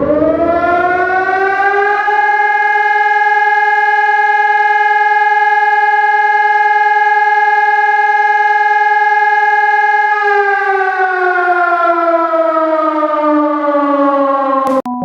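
Civil-defense-style warning siren winding up, then holding a steady pitch for about eight seconds. It winds slowly down and cuts off suddenly just before the end.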